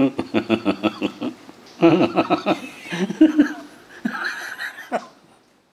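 A person laughing: a quick run of chuckles in the first second or so, then two more bouts of laughter.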